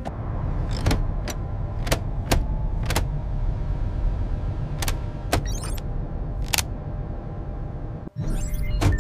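Steady low machine hum, like a spaceship cabin's, with a string of sharp plastic-sounding clicks and taps, about nine in the first seven seconds. The hum cuts out for a moment near the end and comes back with a short rustling burst.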